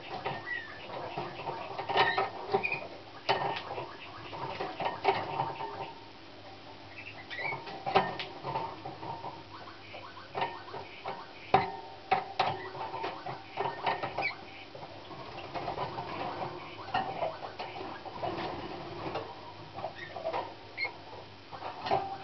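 Young Slavujar song canary singing: a running series of short, fairly low notes, rolls and clicks, broken by brief pauses.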